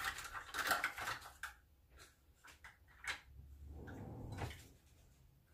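Kitchen handling noises while flour is measured out: a rustle and scrape in the first second or so, a few light knocks, then another rustle about four seconds in.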